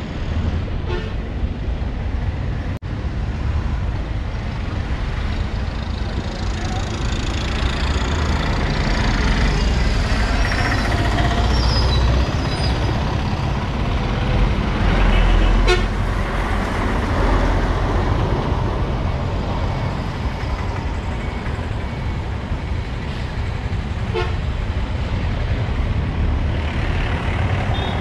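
Busy town-street traffic: engines of passing cars, buses and trucks rumbling steadily, with vehicle horns tooting. The rumble is loudest about halfway through, as a heavier vehicle goes by.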